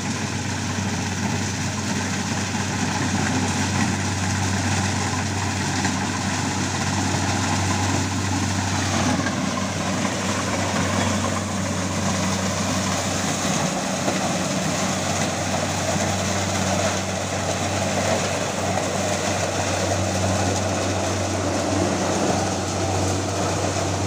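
Kubota combine harvester running steadily as it harvests standing corn: a deep, even engine hum under the noise of its working machinery. The sound grows fuller about nine seconds in.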